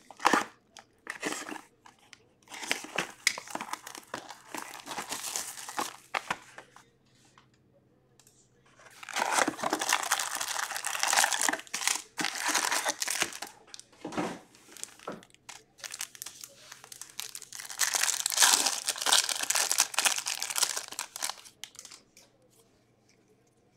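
2021-22 Upper Deck Ice hockey card packs torn open by hand: the wrappers crinkle and tear in three long stretches, with small clicks between them.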